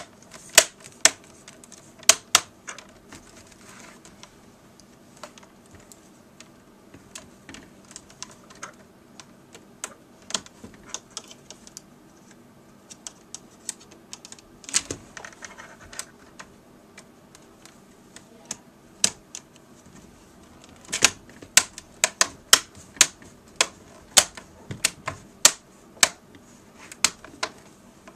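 Plastic screen bezel of an Acer Aspire 5738 laptop being pressed back onto the display, its clips snapping into place: a run of sharp, irregular clicks, thickest in the first few seconds and again over the last several seconds.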